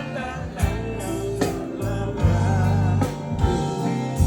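Live reggae band playing through a concert sound system: bass and drums carry a steady groove under a sung or melodic line.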